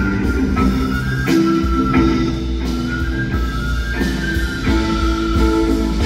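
Live band playing an instrumental passage: guitar over bass and drums, with a held high melody line and a steady beat.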